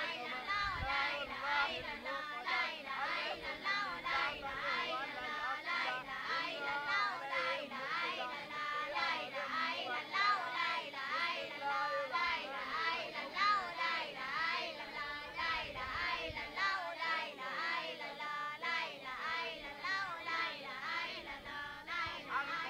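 A group of children singing together in chorus, with no break.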